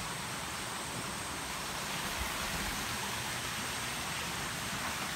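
Shallow forest stream running over rocks: a steady rushing hiss.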